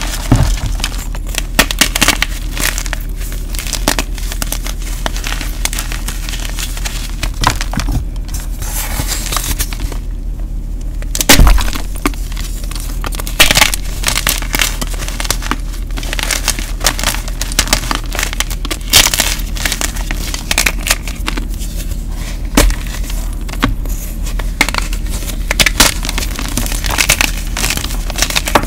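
Hands crushing and crumbling blocks of dyed gym chalk and loose chalk powder: dense, irregular crunching and crackling with sharper snaps now and then, the loudest about eleven seconds in. A steady low hum runs underneath.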